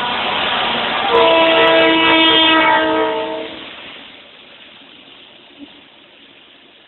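Slovenian Railways (SŽ) diesel locomotive passing at speed with a freight train. A long horn blast starts about a second in and lasts about two and a half seconds, then the rumble of the passing wagons fades.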